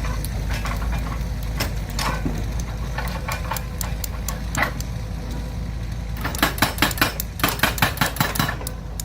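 An engine running steadily with scattered clicks, then a quick run of sharp knocks, about six a second, for a couple of seconds near the end.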